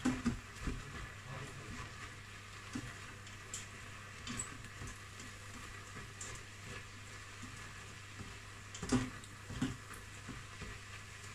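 Chopped onion, celery, mushrooms and grated carrot sizzling faintly as they fry in an Instant Pot's stainless steel inner pot on its sauté setting. A silicone spatula stirs them, knocking and scraping against the pot a few times near the start and most loudly about nine seconds in.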